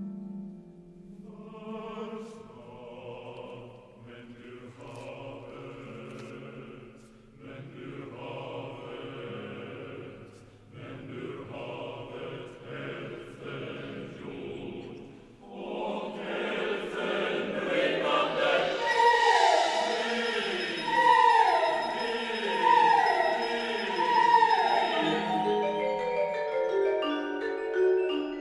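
Contemporary orchestral music with choir: soft held chords that swell markedly louder a little past halfway, then a run of four falling figures before the sound thins out near the end.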